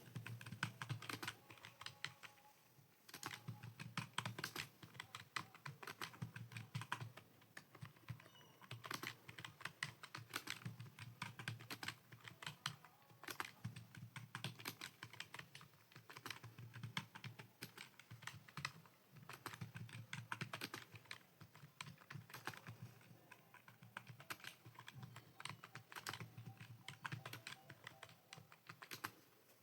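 Typing on a computer keyboard: a steady stream of key clicks and taps with short pauses, as home-row typing drills are keyed in.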